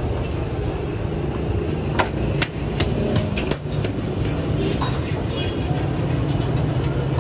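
Sharp, irregular metal knocks and clinks of cooking utensils at a street-food griddle, in a quick run through the middle, over a steady low rumble.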